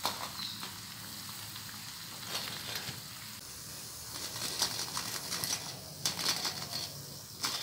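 Hot oil sizzling with intermittent crackles as a freshly fried rice wade drains in a wire strainer over the pan, with a few louder crackling spells.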